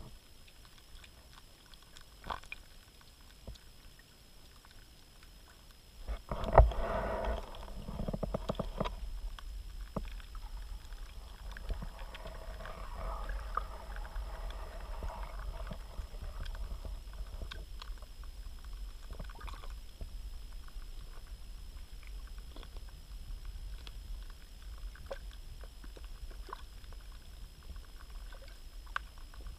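Muffled underwater sound picked up by a GoPro held on a pole in a pond: a steady low rumble with scattered clicks and knocks, then a sudden loud knock about six seconds in, followed by several seconds of sloshing and churning as the water is stirred.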